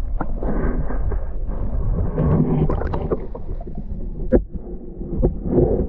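Muffled sloshing and gurgling of water heard from below the surface, with a few sharp knocks about four and five seconds in.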